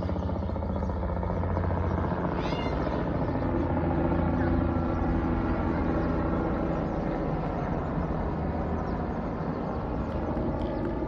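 Helicopter running at the helipad, a steady loud rotor and engine noise with no letup. A brief high warbling chirp cuts through about two and a half seconds in.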